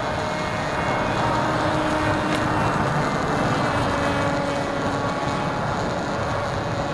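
Skywalker 1880 electric RC plane in flight, its brushless motor and APC 9x6 pusher propeller running steadily: a droning hum of a few held tones over a hiss, the pitch sagging slightly about halfway through.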